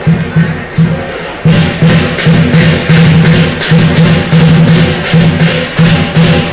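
Lion dance percussion: a big drum beating with clashing cymbals in a fast, steady rhythm of about three to four strokes a second. It dips briefly and comes back louder about a second and a half in.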